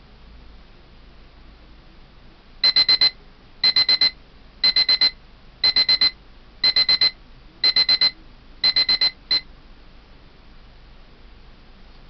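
Daiso 105-yen digital kitchen timer (D106) sounding its alarm at the end of a countdown: quick bursts of four high beeps, about one burst a second, seven times, the last burst cut off partway.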